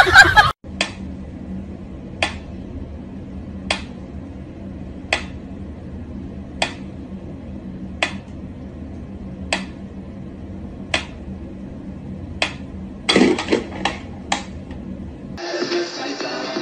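Mechanical pyramid metronome ticking slowly and evenly, about one sharp tick every second and a half. Near the end comes a brief louder sound with a couple of quicker clicks.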